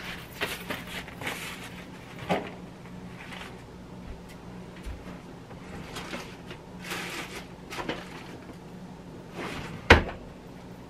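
Kitchen handling sounds: scattered rustling and light knocks, with one sharp knock shortly before the end, over a steady low hum.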